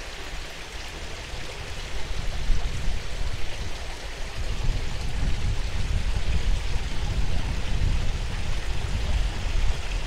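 Water from a small garden waterfall splashing steadily into a koi pond, with gusts of wind buffeting the microphone that set in about two seconds in and grow stronger.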